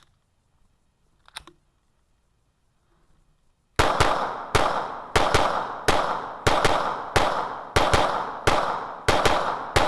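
A Beretta 92FS-type 9mm pistol (Samurai's Edge) fired through its last magazine: a single click, then a string of about a dozen shots at a steady pace, a few in quick pairs, each ringing out briefly.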